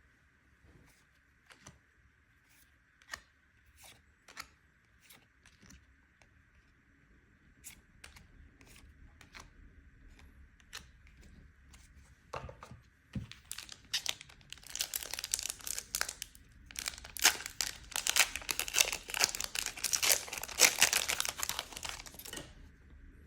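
Soft clicks and taps of trading cards being handled, then, about halfway through, a foil booster pack wrapper being torn open and crinkled, loudest near the end.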